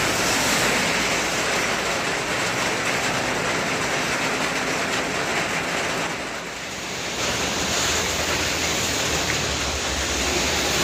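Heavy rain with the steady hiss of traffic driving on a flooded road. The hiss thins briefly about six to seven seconds in, then a low engine rumble builds near the end as more vehicles come up.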